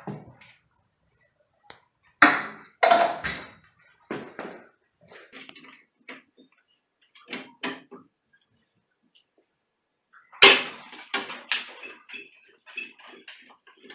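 Hard metallic clanks and knocks from work on an old gas water heater. A few loud sharp strikes, some with a brief ring, are mixed with lighter clicks and rattles.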